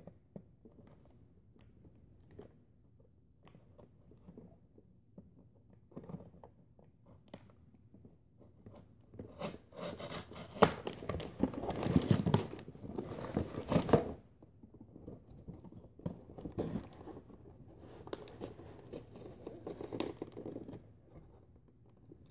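Nerf blaster packaging being worked open by hand: faint small clicks at first, then from about nine seconds in, bursts of scraping, tearing and crinkling of cardboard and plastic.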